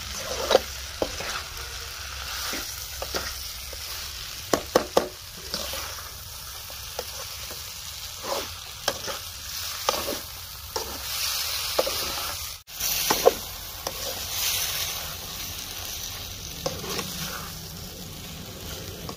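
Bitter gourd slices and tomato-onion masala sizzling in oil in an aluminium kadai while a perforated steel ladle stirs them, knocking and scraping against the pan at irregular moments.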